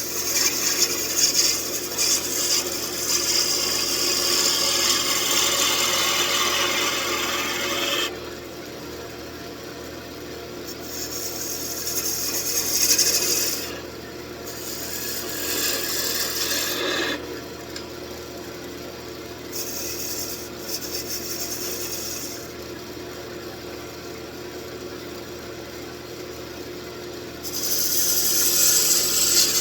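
A turning tool cutting into wood from an old table leg spinning on a wood lathe, with a hissing, rasping sound. There is a long cut for about the first eight seconds, several shorter cuts in the middle, and another loud cut near the end, with the lathe running more quietly between them.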